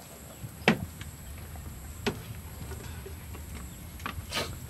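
Three sharp knocks and clicks as raw pig legs are handled and stuffed in a metal tray, the loudest about a second in, over a low steady background rumble.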